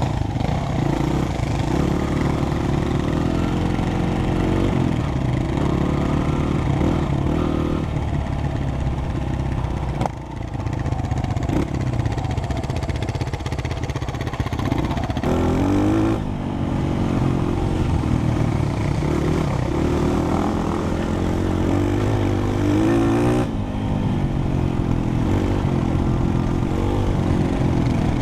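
Four-stroke single-cylinder dirt bike engines running and revving up and down as the bikes ride over gravel. The sound jumps abruptly about ten, sixteen and twenty-three seconds in.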